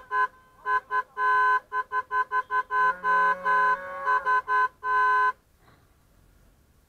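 Car horn honked in a rapid run of short and longer blasts, the celebratory honking of a wedding convoy. It ends in one longer blast and cuts off abruptly about five seconds in.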